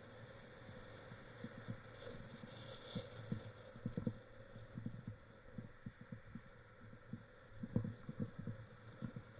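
Muffled, irregular low thuds and knocks, several a second, over a faint steady hum: a handlebar- or body-mounted action camera jolted as the mountain bike rides over rough ground.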